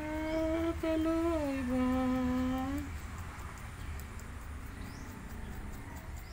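A voice holds a long low hum in three joined notes, rising slightly and then dropping to a lower held note, and stops about three seconds in. A steady low background hum runs underneath.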